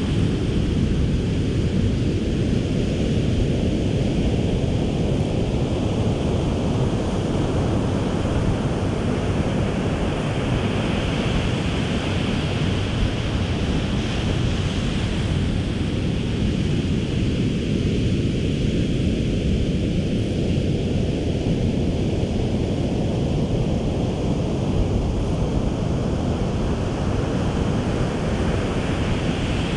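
Ocean surf washing on a beach, a steady rush with the hiss of the wash swelling twice, about a third of the way in and again near the end, over wind rumbling on the microphone.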